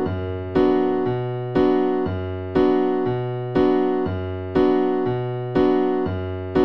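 Background piano music: a chord struck about once a second, the bass note switching back and forth between two pitches.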